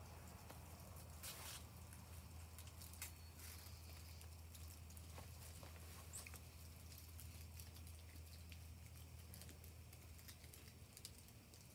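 Near silence: a steady low hum with scattered faint small clicks and rustles.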